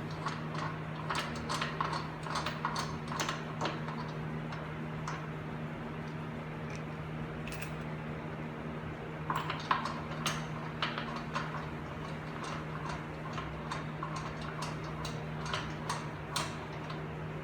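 Hand tools clicking and clinking on metal as bolts are tightened by hand, in irregular runs of sharp ticks, thinner for a few seconds in the middle, over a steady low hum.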